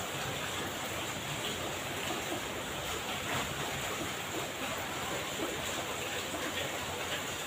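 Heavy rain pouring steadily, a dense even hiss of drops striking wet paving and roofing.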